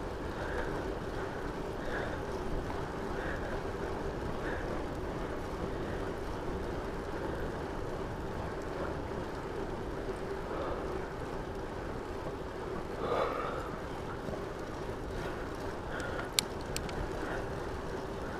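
Steady rolling and wind noise from a RadRover fat-tire electric bike riding along a paved trail, with wind buffeting the microphone and a faint steady hum underneath. A single sharp click about 16 seconds in.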